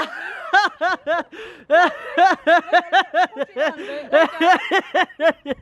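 High-pitched laughter: a rapid run of short 'ha' sounds, about four a second, with a couple of brief breaks.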